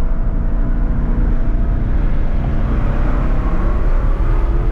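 Supercharged Ford Mustang GT engine running steadily, heard from inside the cabin.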